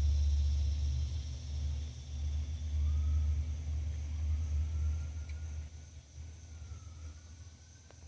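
Low rumble of passing road traffic, fading out about five and a half seconds in, with a faint siren slowly rising and falling in the distance.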